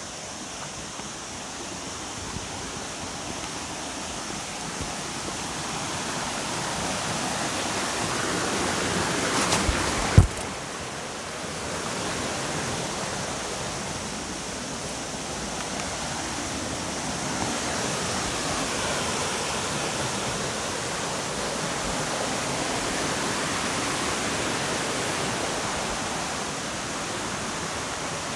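Water falling down a natural waterfall: a steady rush that slowly grows louder over the first ten seconds, then holds. A few sharp knocks sound about ten seconds in.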